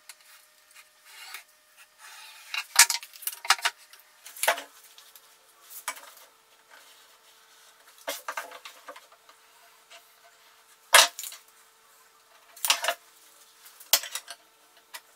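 Small metal hand tools being handled and set down on a wooden workbench: irregular sharp clinks and knocks of a metal square and tape measure against the wood, with a faint steady hum underneath.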